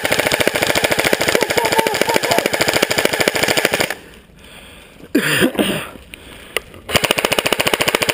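Airsoft rifle firing long full-auto bursts, a rapid, even chatter of shots. The fire stops about four seconds in and starts again near the end.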